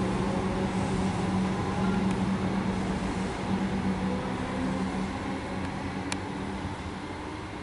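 Comeng electric suburban train pulling out of the platform, its motors humming steadily and fading as it draws away. A single sharp click about six seconds in.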